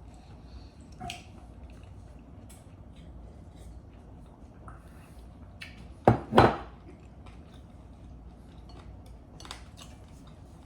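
Eating utensils clicking lightly against bowls and dishes at scattered moments, with two loud sharp knocks in quick succession about six seconds in.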